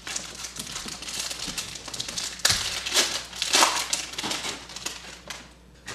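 Plastic trading-card pack wrapping crinkling and rustling as hands handle and open it, with louder crackly surges about two and a half and three and a half seconds in.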